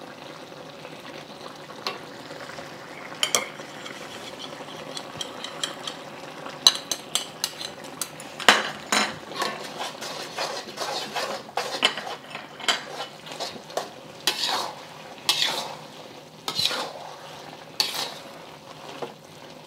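Utensil stirring and scraping through a tomato and beef stir fry simmering in its sauce in a pan, with a steady sizzle underneath. The scraping strokes come thick and irregular from about a third of the way in as the food is pushed aside and a cornstarch slurry is stirred in to thicken the sauce.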